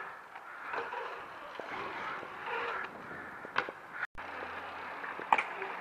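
Bicycle riding on a concrete skatepark: tyres rolling and scraping on the concrete, with three sharp clacks of the bike striking the ramp edges and landing. The sound cuts out briefly about four seconds in.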